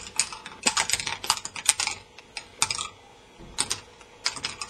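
Small balls clattering along a K'nex ball machine's plastic tracks and lifts: rapid runs of sharp clicks and rattles, thinning out in the middle and picking up again near the end.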